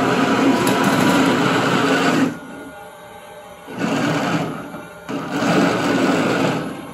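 Electric drive motors, gearboxes and tracks of a 3D-printed 1/9-scale M1A2 Abrams RC tank running on a wooden floor: one long run that stops about a third of the way in, then two shorter bursts as the tank is driven again.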